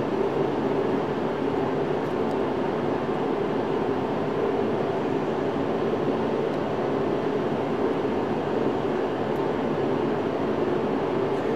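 Steady mechanical hum at an even level, like a running ventilation or air-conditioning unit, with a couple of faint light clicks.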